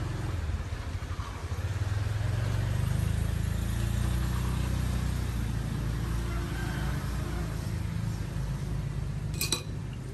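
A motor vehicle engine running, its low rumble swelling a couple of seconds in and slowly dying away. A single sharp click comes near the end.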